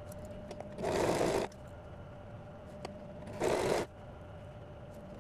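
Domestic electric sewing machine stitching in two short runs, about a second in and again around three and a half seconds in, with a faint steady hum between them.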